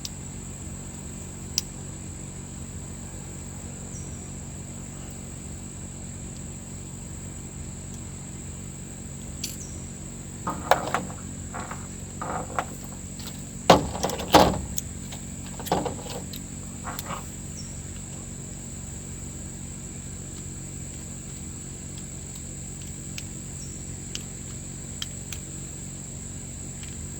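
Continuous high trill of crickets over a low steady hum. Between about ten and seventeen seconds in, a handful of short knocks and rattles of small chainsaw parts being handled, the loudest about fourteen seconds in.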